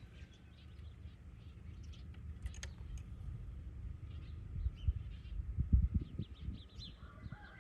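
Wild birds chirping in short, scattered calls over a steady low rumble, with a few louder low thumps near the middle.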